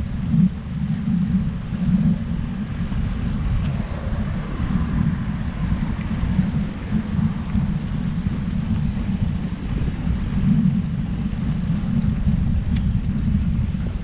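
Wind buffeting the microphone of a road bike's ride camera while cycling uphill: a steady, gusty low rumble, with a couple of faint ticks.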